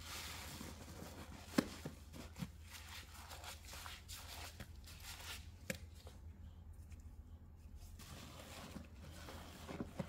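Soapy sponge squeezed by hand during a fake rinse with Pine-Sol: irregular wet squelches and crackling suds with a few sharper pops, over a steady low hum. It goes quieter for a moment about six seconds in, then picks up again.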